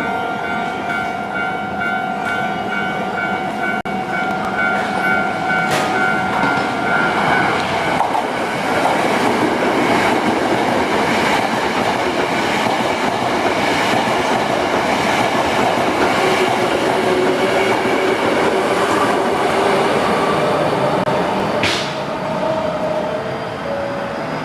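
A Japanese level-crossing warning bell rings with a steady, repeating ding for the first several seconds. Then a Hankyu electric train runs over the crossing, its wheels rumbling and clattering on the rails for about fifteen seconds before the noise eases near the end.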